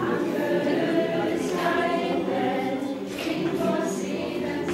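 Choir singing together, the voices holding long notes in phrases.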